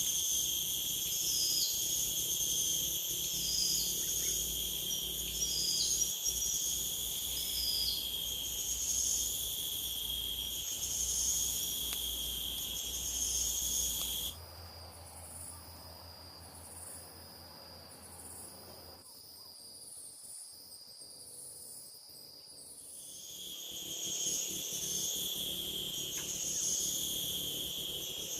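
Insect chorus: a steady high-pitched buzzing with a short falling chirp repeated about every second and a half. About halfway through it cuts to a thinner, quieter single buzz, and the full chorus comes back a few seconds before the end.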